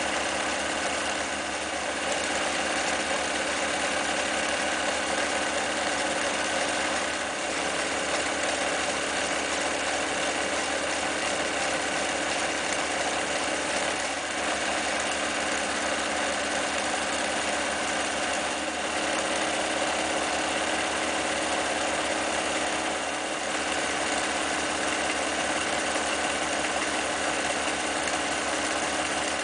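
Elna Stella TSP electric sewing machine running steadily, its motor and needle mechanism stitching zigzag and decorative stitches through fabric.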